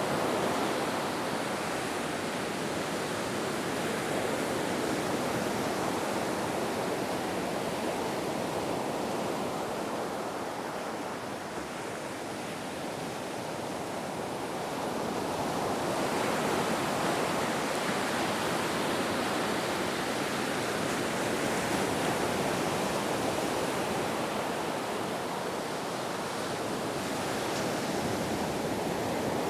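Ocean surf: a steady wash of breaking waves that eases off for a few seconds in the middle and swells up again about sixteen seconds in.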